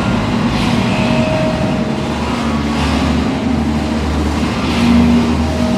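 Loud, dense electronic noise music: a wall of noise over a low drone and a few held tones, with falling hisses sweeping through every couple of seconds.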